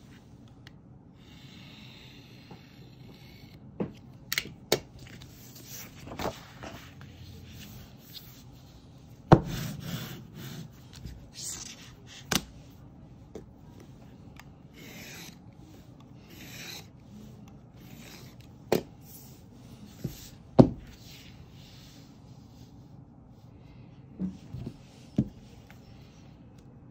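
A snap-off-blade utility knife scoring and slicing pattern paper along a ruler, in several short scraping strokes, with sharp knocks and clicks as the ruler and knife are set down and handled.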